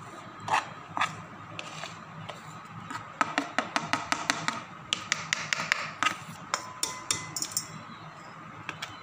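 Metal spoon tapping and scraping against a plastic plate, knocking spice powders off it into a pot: a few single taps, then a quick run of sharp taps, several a second, through the middle.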